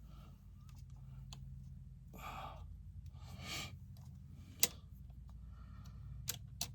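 A person breathes out audibly twice, then a few sharp light clicks follow over a low steady hum.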